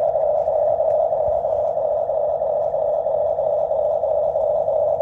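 A small motor running steadily, giving a loud, unchanging mid-pitched hum.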